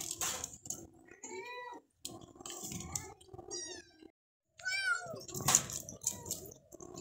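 Domestic cats meowing several times: short meows, some high-pitched and falling in pitch, separated by brief breaks, with a few sharp clicks among them.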